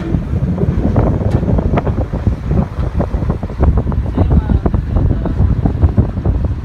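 Wind buffeting the microphone of a moving boat: a loud, gusty rumble with crackles, with the boat's running noise and the water beneath it.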